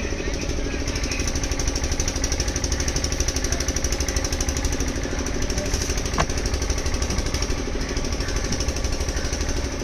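A small engine running steadily at idle with a rapid, even pulse, and a single sharp tap about six seconds in.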